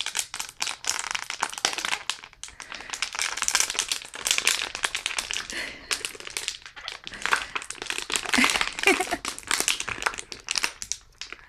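Empty plastic water bottle crackling and crinkling as a small dog bites and chews on it, in irregular bursts of sharp crackles.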